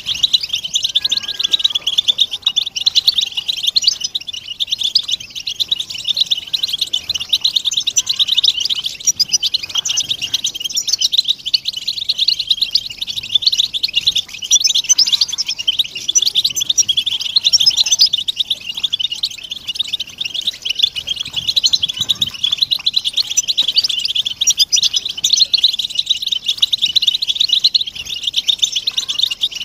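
A flock of European goldfinches twittering: a dense, unbroken mass of quick high chirps and tinkling calls from many birds at once. These are the flock's contact and mating calls.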